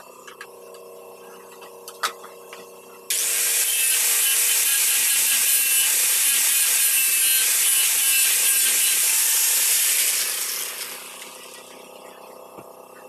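Handheld angle grinder switched on about three seconds in and run against a wooden board for some seven seconds, then switched off and spinning down.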